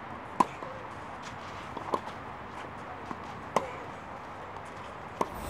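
Tennis ball struck back and forth by rackets in a rally: four sharp pops about a second and a half apart, over a faint steady background hiss.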